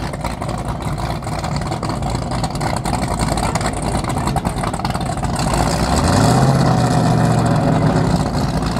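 High-performance powerboat's engines running at idle with a low, steady rumble, then revving up about five and a half seconds in to a stronger, even note as the boat is powered forward.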